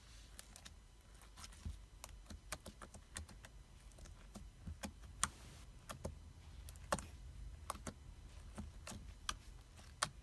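Sticky homemade slime being worked by hand, making irregular small clicks and pops, several a second.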